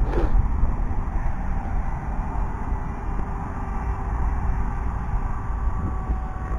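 Wind rumbling on an outdoor microphone, with the faint steady whine of a drone's electric motor and propeller in flight above it. There is a short click right at the start.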